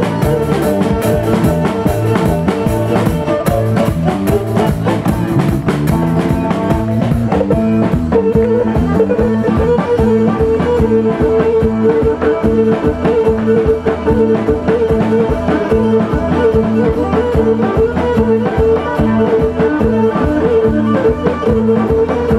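Live band playing an instrumental Greek dance tune: a drum kit keeps a steady beat under plucked strings, and a high melody line comes to the fore about eight seconds in.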